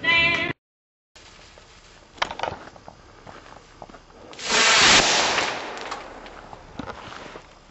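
Homemade red flash firework going off: a faint crack about two seconds in, then about four and a half seconds in a loud rushing burst that fades away over a couple of seconds.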